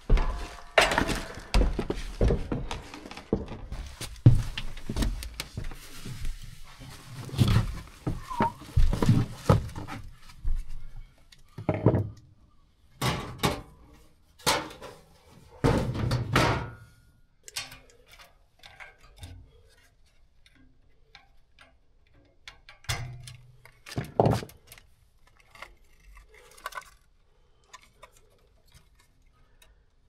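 Metal parts and tools being handled: a run of knocks, clinks and clunks, thick for the first ten seconds, then only a few scattered ones.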